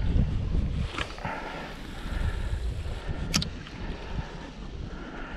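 Wind rumbling on the microphone, strongest in the first second, with a sharp click about a second in and another about three and a half seconds in.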